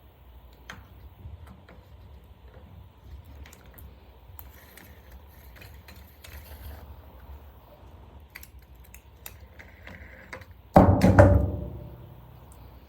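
Faint clicks and rattles of hand tools on a string trimmer as its old head is worked loose, then a loud clunk near the end.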